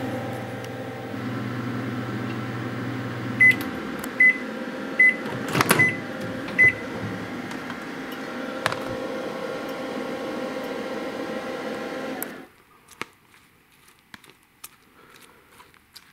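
Panasonic inverter microwave oven running with a steady hum whose low drone stops about three and a half seconds in, followed by five short high beeps marking the end of the cook cycle. The rest of its running noise carries on and then cuts off about twelve seconds in, leaving only faint clicks.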